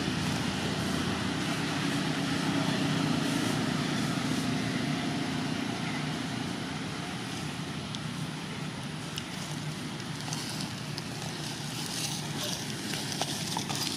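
A steady mechanical hum with a constant low tone, like a running engine, over a noisy background. It eases off a little after the middle, and a few faint clicks come near the end.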